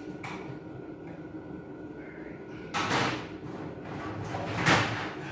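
Sheet-metal parts of a Kobalt cabinet scraping and sliding against each other during assembly: two longer scrapes, one about three seconds in and a louder one near the end.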